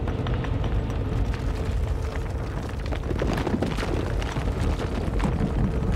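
Cartoon sound of a large drum being beaten hard and fast, a dense low rumble of many rapid strikes.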